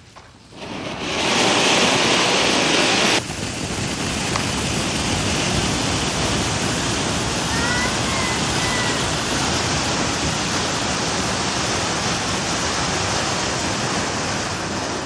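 Firework hissing steadily: loudest for the first few seconds, it drops sharply to a lower, even hiss about three seconds in and keeps going.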